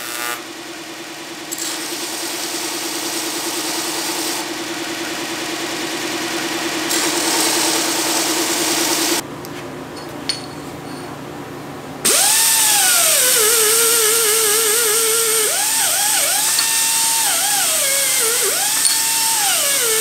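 A band saw hums steadily for the first several seconds, with a single knock around ten seconds in. From about twelve seconds a pneumatic die grinder with a small abrasive disc spins up with a loud whine, its pitch dipping and recovering again and again as it grinds the cut end of an aluminum tube.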